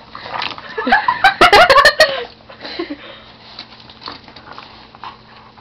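A person giggling in a short burst about a second in, then only faint small scuffling sounds.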